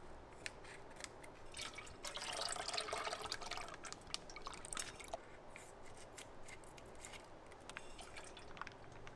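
Milk pouring from a plastic packet into a steel pot, louder from about two to five seconds in, with a few sharp clicks from scissors snipping the packet open and the packet being handled.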